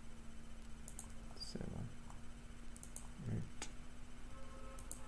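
Computer mouse clicking several times, short sharp clicks a second or so apart, with a few short low thuds between them over a faint steady hum.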